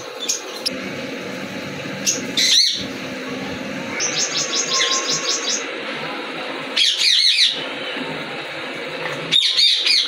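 Caged small parrots chirping in short, shrill bursts, including a quick run of about ten chirps in the middle.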